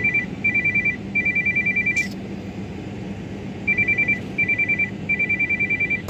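Telephone ringtone: a rapid two-tone electronic trill in groups of three, two short bursts and one longer, the group repeating after a pause of about a second and a half. A steady low car-cabin hum runs beneath it.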